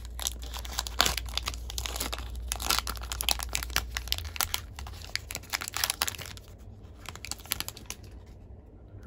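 Hockey card pack wrapper being torn open by hand, crinkling and tearing, busy for the first six seconds or so and then thinning to a few scattered crackles.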